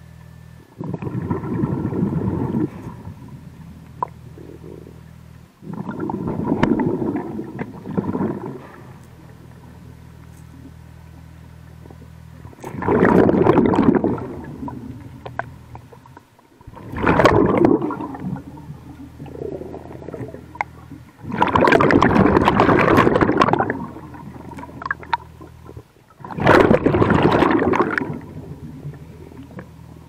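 Diver breathing underwater through a hookah-fed regulator: exhaled air gurgles out in six bubbling bursts, one every four to five seconds. A steady low hum runs between the breaths.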